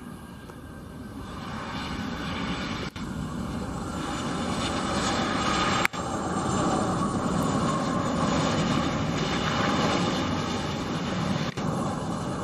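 Dassault Falcon 7X's three rear-mounted turbofan jet engines running as the jet rolls on the runway: a rushing jet whine that grows louder over the first half and then holds, broken by a few brief gaps.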